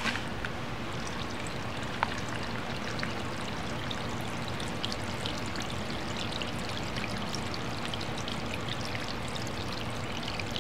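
Water from a just-switched-on pump spilling down the rocks of a small pondless waterfall, a steady trickling splash.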